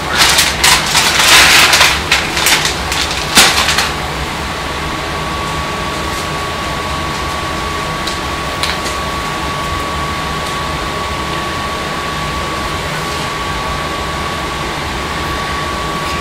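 Crinkly rustling of a plastic bag of frozen tater tots being handled for about four seconds, then a steady background hum with a faint high tone and a few light clicks as tots are set in the dish.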